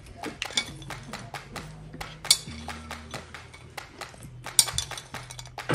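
Metal spoons and forks clinking against ceramic bowls and plates: a steady run of small clicks, with a louder clink about two seconds in and another later on.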